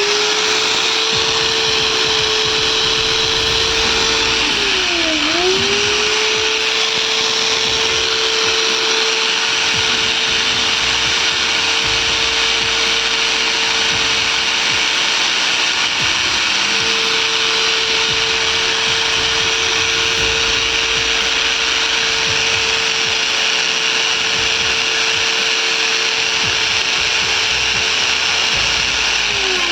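Freshly serviced Bosch GWS 600 angle grinder running with no load, a steady motor whine. Its speed dips briefly about five seconds in and picks straight back up, and it spins down near the end. It runs smoothly on its newly greased gearbox.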